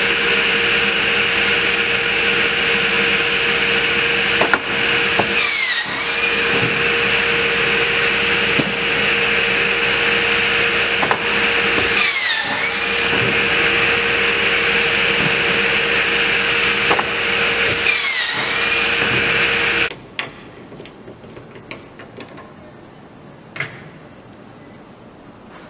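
Crosscut Solutions CS24P pop-up cut-off saw running with a steady hum. Its blade cuts through a stack of 2x4 boards three times, about six seconds apart, and each cut pulls the pitch down before it climbs back. About twenty seconds in the machine noise stops abruptly, leaving low background sound with a few small clicks.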